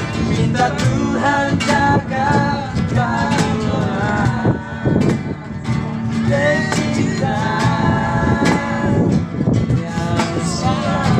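Live acoustic guitar and cajón with singing: the guitar strummed and the wooden box drum slapped by hand in a beat under a sung melody.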